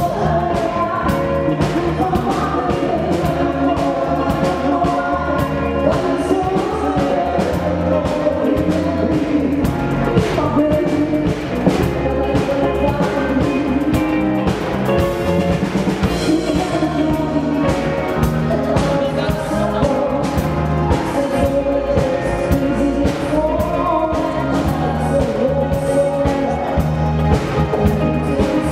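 Live band music: a woman singing lead, with a man's voice alongside, over a steady drum-kit beat, electric bass and electric guitar.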